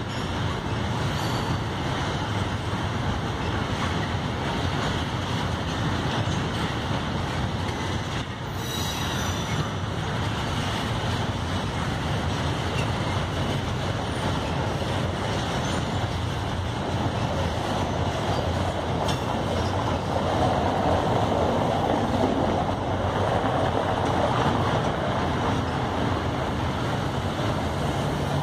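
Empty bauxite freight wagons rolling past on the rails: the steady rumble of steel wheels over the track. There is a brief high-pitched squeal about eight and a half seconds in, and the noise grows louder in the second half.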